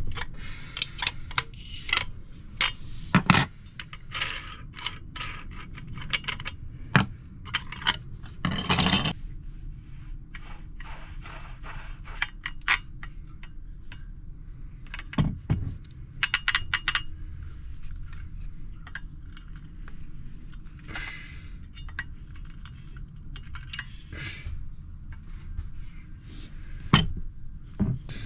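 Irregular metallic clinks, knocks and short scrapes of metal parts and tools being handled, over a steady low hum.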